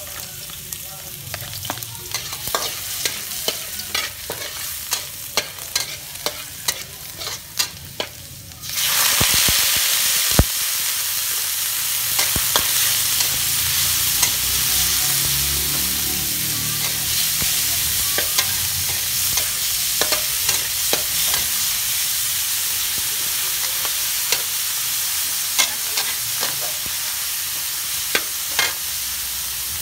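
A metal ladle clinks and scrapes against a steel wok while chopped garlic fries quietly in a little oil. About nine seconds in, the pork goes into the hot wok and a loud, steady sizzle takes over, with the ladle still scraping and tapping as the meat is stir-fried.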